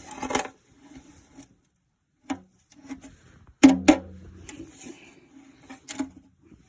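Handling noises: a brief rustle at the start, then scattered sharp clicks and knocks, the loudest two close together a little after three and a half seconds in and another about six seconds in.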